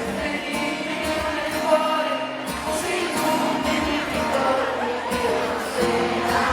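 Live pop song: singing over amplified backing music, running steadily through a hall's PA.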